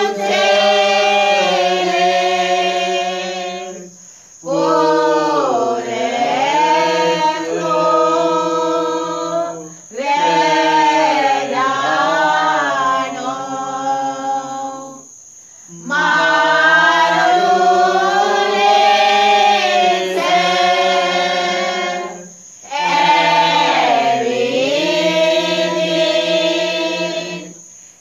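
A prayer group singing a Sinhala Catholic pasan (Lenten passion hymn) unaccompanied, in long drawn-out phrases of about five or six seconds, each followed by a brief breath pause.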